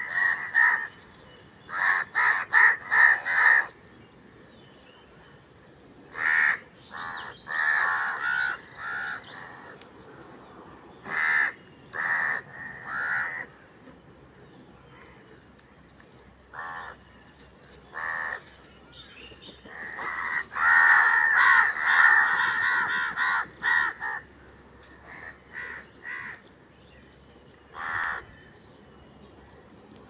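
A flock of house crows cawing in harsh, repeated bouts as they compete over food, several birds calling over one another, with pauses of a few seconds between bouts.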